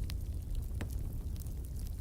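Wood fire crackling: scattered sharp pops and snaps from the burning logs over a steady low rumble.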